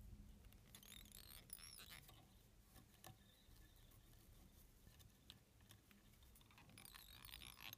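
Near silence: faint rustling and scratching of fingers working synthetic ice dubbing fibres and tying thread onto a hook in a vise, clearest about a second in and again near the end.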